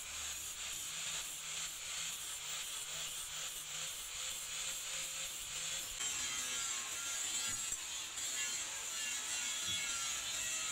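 Angle grinder with a sanding disc running against the steel hammer head, then, about six seconds in, a coal forge fire burning with a steady hiss and faint crackles, with a couple of dull knocks of the tongs in the coals.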